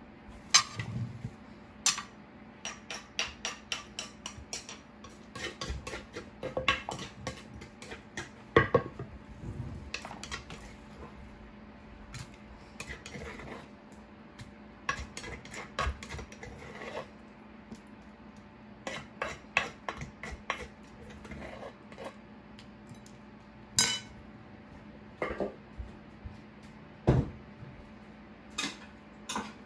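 A metal spoon scraping and knocking against the inside of a large mortar while pounded greens are scooped out onto a ceramic plate: a long run of irregular clinks and knocks.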